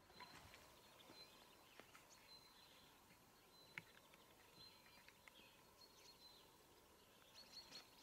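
Faint birdsong over quiet rural ambience: small birds chirping, with a thin high call repeated several times.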